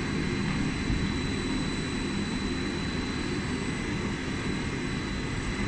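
Veneer rotary lathe and veneer clipper line running: a steady mechanical din with a constant high whine.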